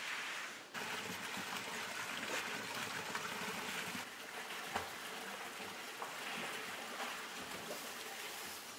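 Running water splashing through a concrete coffee-washing channel, with water gushing from a metal pipe; a steady rushing sound.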